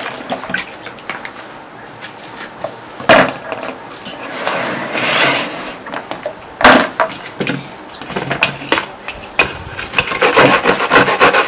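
Kitchen handling noises with scattered clicks and two sharp knocks, then near the end okra rubbed fast against a small hand grater, a quick run of rasping strokes.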